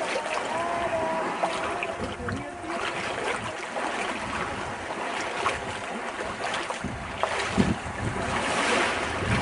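Small waves washing onto a sandy shore, with wind buffeting the microphone.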